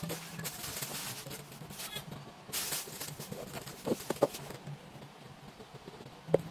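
Thin plastic bags crinkling and rustling as they are handled, with a few soft knocks as they are set down on a wooden table.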